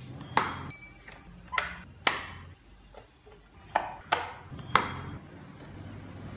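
Sharp knocks of a carving tool striking wood, six strikes at uneven intervals, each with a brief ringing tail, over a low steady hum.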